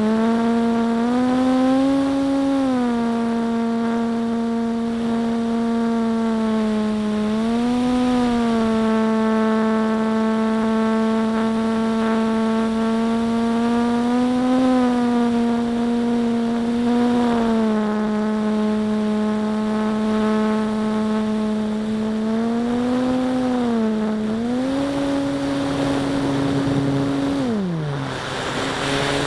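Electric motor and propeller of a radio-control warbird model, heard from a camera on board: a steady whine that rises in pitch and settles back several times with the throttle. Near the end the pitch drops sharply as the throttle is pulled back, while the rush of air grows louder.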